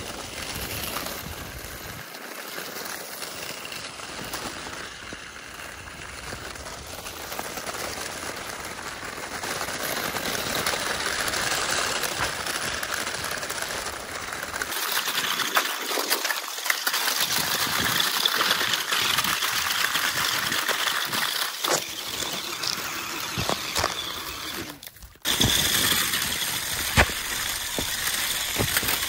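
Small RC construction models at work: steady noise from their electric drives and gears, with stones and dirt rattling and clinking. The sound dips sharply for a moment near the end and then comes back louder.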